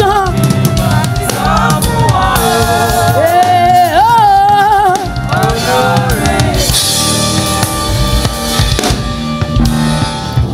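Live gospel praise band: singers with wavering, held notes over a steadily beating drum kit, bass guitar and keyboard. The music cuts off abruptly at the end.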